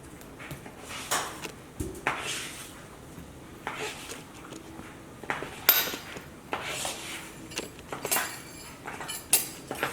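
A spoon clicking and scraping against a dish in irregular taps and scrapes as a toddler feeds himself.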